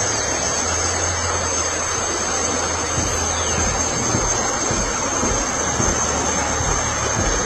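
Rushing water making a steady, loud noise, with a thin steady high-pitched whine running over it.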